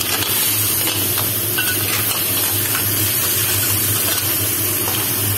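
Clams, cherry tomatoes and onion sizzling in a hot wok as they are sautéed dry before water goes in, with faint clicks of the spatula against shells and pan. A steady low hum runs underneath.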